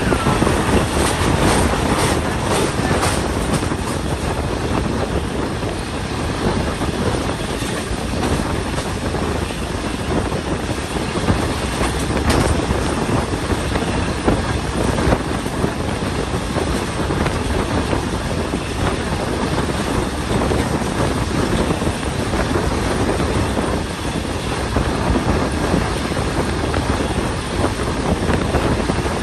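Passenger train running along the track: a steady, loud rumble and rattle of the coaches' wheels on the rails, with a few sharp clicks.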